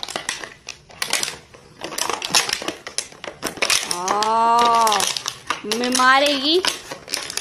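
Dog chewing a plastic water bottle: the crumpled plastic crackles and crinkles in quick irregular clicks. Two drawn-out vocal sounds come through, one about four seconds in and a shorter rising one about six seconds in.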